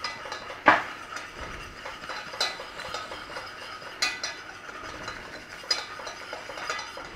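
Wire whisk scraping and clinking against the inside of a stainless steel saucepan while stirring a butter-and-flour roux as it cooks. There is continuous scraping with a sharper clink about every second and a half.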